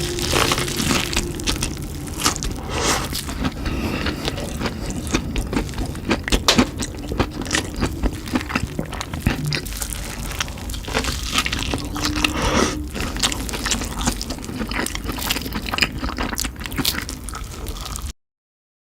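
Crunchy potato chips being bitten and chewed close to the microphone: a dense, irregular run of crisp crunches that cuts off suddenly near the end.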